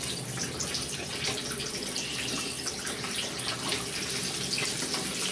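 Whole green bell peppers frying in a wok of hot oil: a steady sizzle with dense fine crackling.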